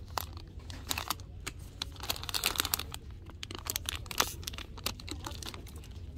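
Plastic candy packaging crinkling as it is handled on the shelf: bagged gum and wrapped lollipops. It comes as an irregular run of sharp crackles, loudest about four seconds in.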